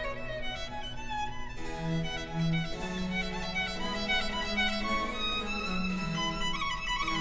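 A symphony orchestra playing a baroque piece led by violins, with a moving bass line beneath.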